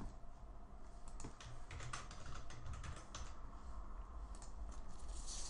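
Typing on a computer keyboard: a run of irregular key clicks as text is entered into a form.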